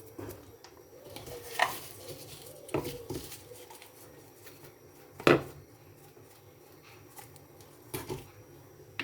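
A few separate clinks and knocks of kitchen utensils against a bowl, the loudest about five seconds in.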